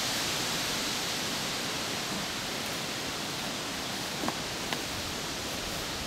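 A steady, even hiss, with two faint short knocks a little past four seconds in.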